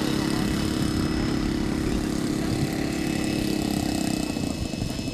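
Small engine of a radio-control scale Sopwith Pup model airplane running steadily, becoming quieter about four seconds in.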